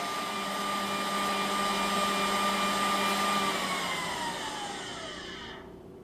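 Roomba s9+ Clean Base's suction motor running steadily as it empties the docked robot's bin, then winding down with a falling whine and stopping about five and a half seconds in.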